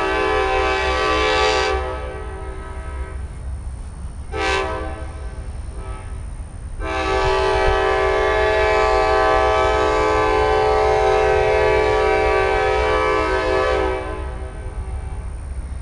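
Amtrak passenger locomotive's air horn sounding the grade-crossing warning over a steady low rumble: the tail of one long blast, a short blast about four and a half seconds in, then a long blast of about seven seconds. This is the closing short-long of the long-long-short-long signal a train gives as it nears a crossing.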